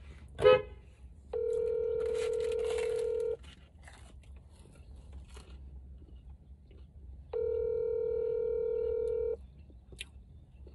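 Telephone ringback tone heard over a phone's speaker while an outgoing call rings at the other end: two steady rings, each about two seconds long, about four seconds apart.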